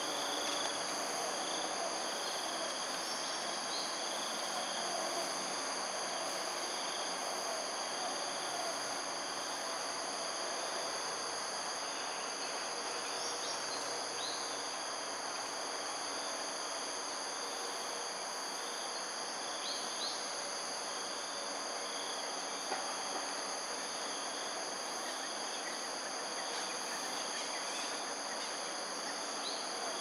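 Steady insect chorus, several high-pitched continuous tones over a soft background hiss, with a few faint short chirps now and then.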